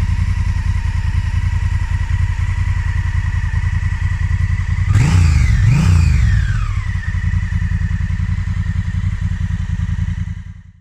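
Honda Africa Twin motorcycle's parallel-twin engine idling with a steady pulsing beat. It is revved twice about five seconds in, the pitch rising and falling with each blip, then it settles back to idle.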